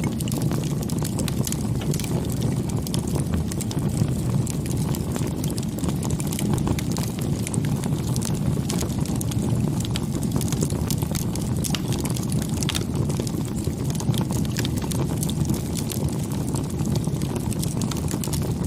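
Wood bonfire burning, with many small irregular crackles and pops over a steady low rumble.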